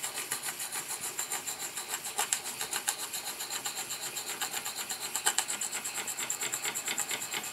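Retrol model walking beam steam engine running steadily on live steam, its exhaust and moving linkage making a fast, even rhythmic beat.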